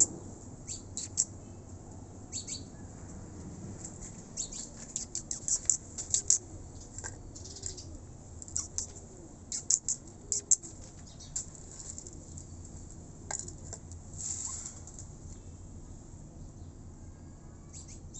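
Small birds chirping in quick clusters of short, high-pitched chirps, busiest in the middle and thinning out toward the end.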